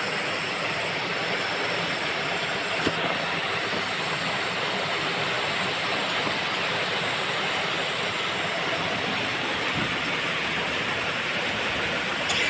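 Gas brazing torch flame hissing steadily while a copper refrigerant pipe joint is brazed, with a brief click about three seconds in.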